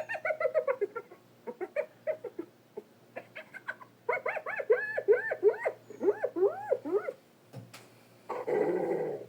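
Cartoon hyena vocal effects: a quick run of short yipping, giggling calls that rise and fall in pitch, a few a second, then a short harsh snarl near the end.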